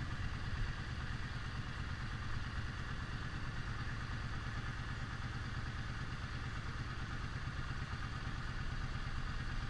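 Cruiser motorcycle engine idling, heard faintly as a steady low rumble with a fine regular pulse.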